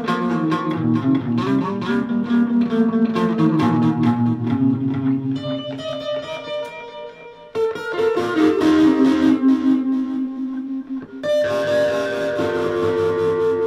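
Electric guitar played through a board of effects pedals: quick single-note melodic lines, a softer stretch of high ringing notes about halfway through, then fuller playing again, ending on longer held notes.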